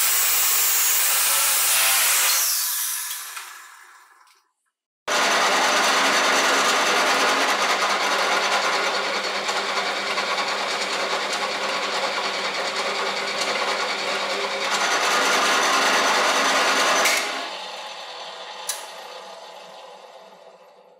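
Angle grinder with a brass brush wheel scouring a spinning metal drill chuck, then winding down. After a short gap, the electric drill motor spins the chuck steadily while it is rubbed with a cloth, then is switched off and coasts down to a stop over the last few seconds, with a single click during the wind-down.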